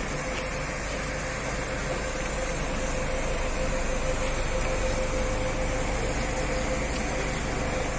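Steady mechanical hum with a constant whine and a low rumble underneath, growing slightly louder.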